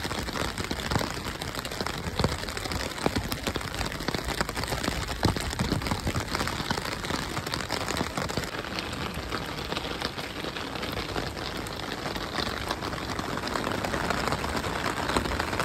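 Heavy rain falling on a clear plastic umbrella held just over the microphone: a steady hiss dotted with many sharp drop ticks.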